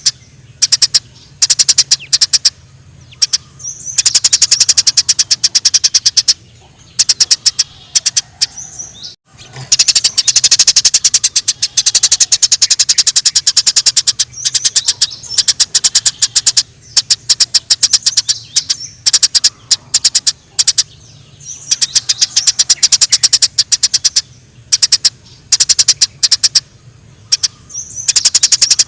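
Eurasian tree sparrows chattering in rapid, dense runs of sharp chirps, bout after bout with short pauses: the agitated calls of sparrows fighting. A steady low hum runs underneath.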